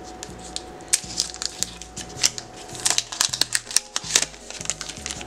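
Clear protective plastic film being peeled off the back of a smartphone, crinkling and crackling in a quick run of sharp clicks.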